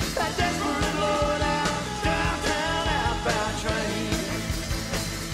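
Rock band music from a song recording, with drums and bass under a lead melody that bends in pitch.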